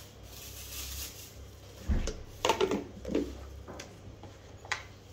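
Knocks and clatters of cookware and utensils being handled: about half a dozen sharp impacts, the first about two seconds in.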